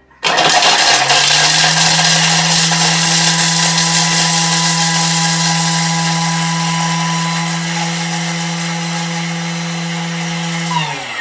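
Thermomix TM6 food processor blending chunks of parmesan at maximum speed (speed 10). It starts abruptly, runs as a loud steady motor whine over a dense chopping noise for about ten seconds, then winds down with falling pitch near the end.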